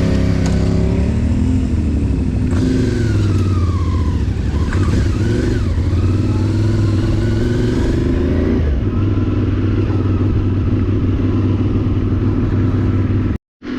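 Motorcycle engine running on the road with wind and road noise, its pitch rising and falling as the throttle changes. The sound cuts out abruptly near the end.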